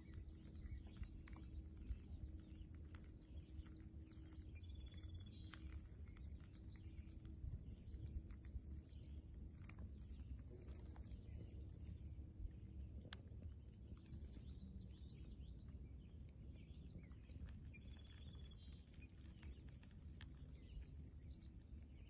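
Songbirds singing faint, short, high chirping phrases that recur every few seconds, over a low steady rumble.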